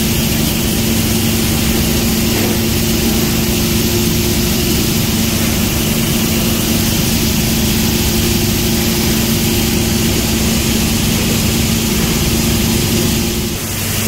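Recycling-plant processing machinery running steadily, a loud even mechanical drone with a steady hum, as a separation line sorts shredded Ethernet jacks and discharges their gold-plated pins.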